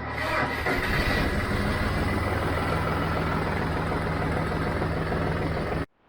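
John Deere 5055D tractor's diesel engine running steadily just after its first cold start of the year, warming up. The sound cuts off abruptly near the end.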